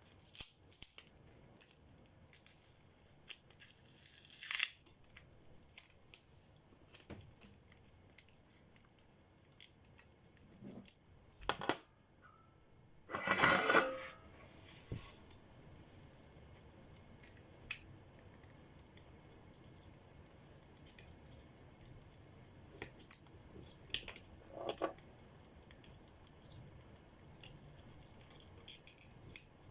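Small clicks, taps and scrapes of hands handling tools and battery parts at a workbench, with one longer scraping, tearing sound about 13 seconds in.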